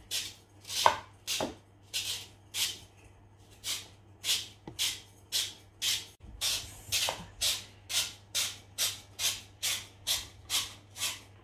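A potato being twisted through a handheld spiral vegetable cutter (Tupperware Spirali) with its fine blade insert. It makes a run of short rasping cuts, one with each turn of the holder, coming faster toward the end at about three a second.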